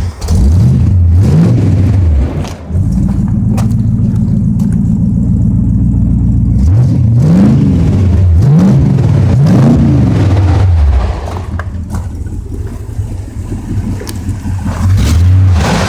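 1967 Ford LTD's V8 engine being revved while warming up after a cold start. It blips up and down a few times, holds steady at high revs for about four seconds, blips again several times, drops to a quieter idle, and revs once more near the end.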